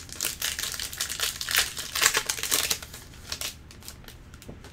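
Foil wrapper of a Panini Prizm basketball card pack crinkling and tearing as it is ripped open, for about three seconds, then a few lighter rustles.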